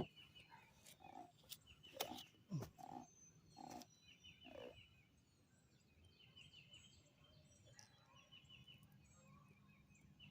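Faint outdoor ambience: a songbird repeating a short trilled phrase again and again, with a few soft knocks in the first half.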